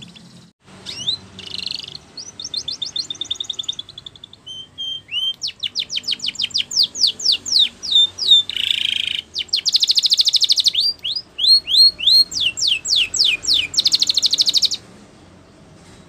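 Domestic canary singing a long, high song of fast trills, runs of quickly repeated sweeping notes and buzzing rolls, starting about a second in and stopping just before the end.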